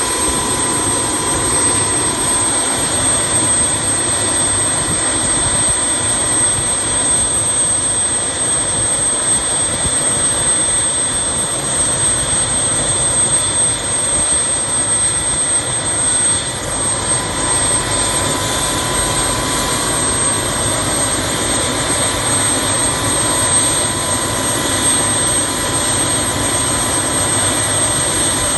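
Helicopter's turbine engine running steadily on the ground, a constant high whine over the rush of the engine and rotor.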